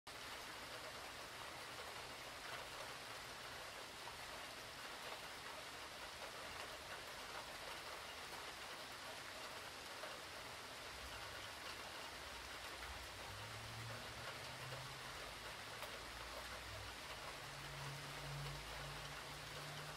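Steady hurricane rain, an even hiss of falling water. A low rumble comes in over the second half.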